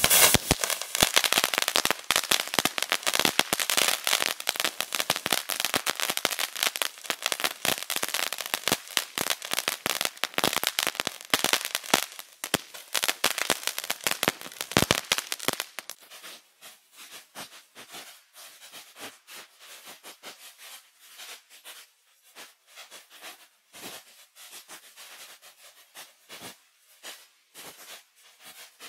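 Karpagaraja Sharp Shooter ground firework going off with rapid, dense crackling as it sprays sparks. After about fifteen seconds the crackle thins out to sparse, quieter pops.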